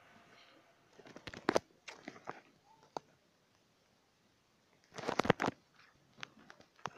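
Handling noise: a string of clicks, taps and rustles as a smartphone and its packaging are picked up and handled, in two bursts about a second in and about five seconds in, with single sharp ticks between.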